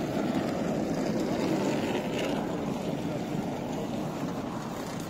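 Steady rumbling noise on a railway station platform, with suitcase wheels rolling over the paving.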